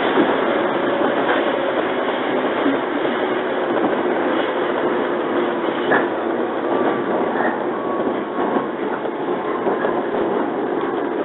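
JR 115 series electric train running at speed, heard from inside the carriage: a steady rumble of wheels on rail with a few sharp clicks scattered through it.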